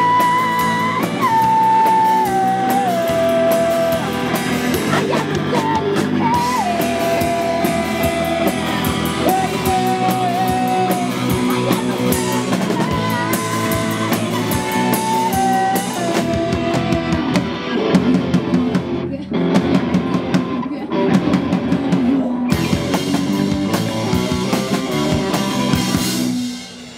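Punk-rock band playing live: electric guitars, bass and drum kit with a female lead vocal holding long notes. The song stops abruptly just before the end.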